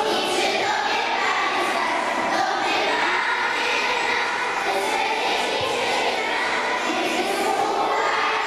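A group of young children singing together as a choir.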